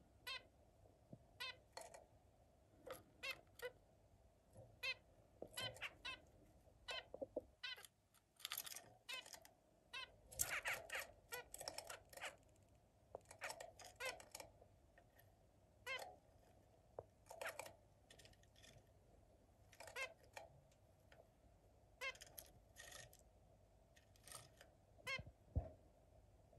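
Zebra finches calling: short beeping calls at irregular intervals, sometimes in quick runs of two or three, busiest about halfway through.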